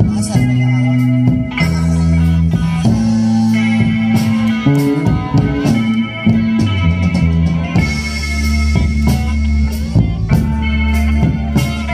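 Live band playing through PA speakers: electric guitars and bass guitar over a drum kit, with steady drum hits throughout.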